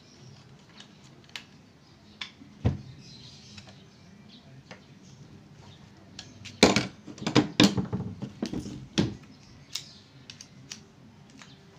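Screwdriver and metal airgun parts clicking and knocking as the gun is reassembled, with scattered single clicks and a cluster of louder, sharper clicks a little past halfway.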